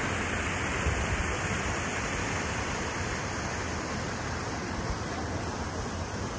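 Steady rushing noise of wind and sea by the harbour, with a fluttering low rumble from wind on the microphone and no distinct events.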